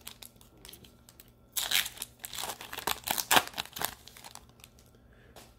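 Foil wrapper of an NBA Hoops trading-card pack crinkling in the hands as it is pulled open around the cards, in irregular bursts that are busiest through the middle.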